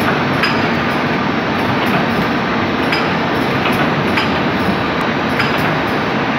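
Machinery of a 500 g yeast production line running steadily, with a short sharp clack repeating at an even pace, a little under two a second.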